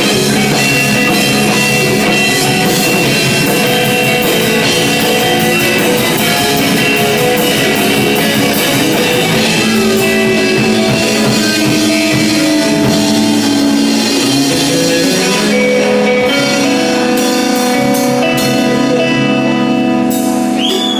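A rock band playing live, loud and continuous: electric guitars, electric bass and drum kit with cymbals.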